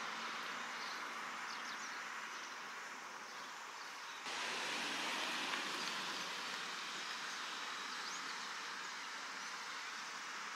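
Steady outdoor background noise, an even hiss with no distinct events, which steps up in level about four seconds in.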